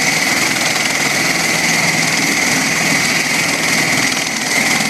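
MV-22 Osprey tiltrotor's turboshaft engines and proprotors running: a steady high whine over a dense, loud rush of rotor and exhaust noise, holding level throughout.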